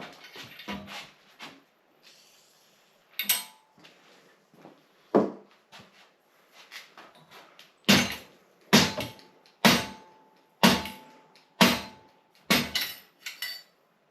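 Hammer blows on the steel front end of a vintage Raleigh Twenty bicycle, knocking parts loose during a strip-down. Two separate strikes come first, then a run of about seven blows roughly a second apart, several of them leaving a brief metallic ring.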